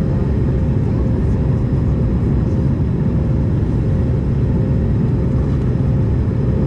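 Steady cabin noise of an Airbus A220-300 in flight, heard from a window seat: a low rumble of engine and airflow with a faint steady hum above it.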